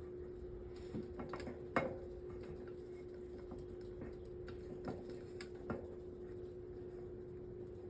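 Scattered small clicks and taps of a screwdriver working at a stubborn screw on a metal table fan's grille ring, the sharpest about two seconds in, over a steady hum.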